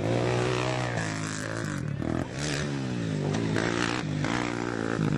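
Racing ATV (quad) engines revving hard, their pitch climbing and dropping again and again through gear changes and throttle lifts.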